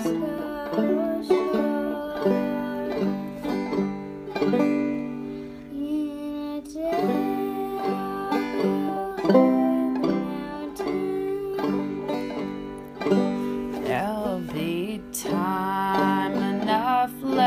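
Banjo playing the song's melody, a run of plucked notes that ring on into one another.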